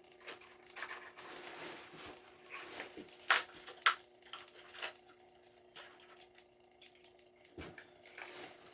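Hot Wheels blister packaging being handled: scattered small clicks and crinkles of plastic and card, with two sharper snaps about three and a half seconds in, over a faint steady hum.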